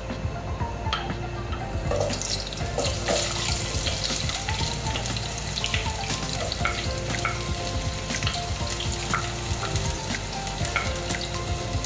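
Onions frying in a pot of hot oil. The sizzle thickens about two seconds in, as the onions hit the oil, and then carries on steadily with scattered small pops.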